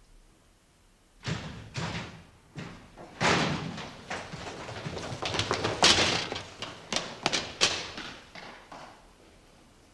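An irregular string of sharp thumps and knocks, starting about a second in, crowding together and loudest in the middle, then thinning out and stopping shortly before the end.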